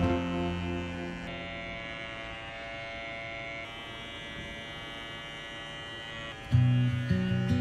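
Handheld electric carving clipper buzzing steadily as it trims the pile of a tufted rug. Background music gets louder near the end.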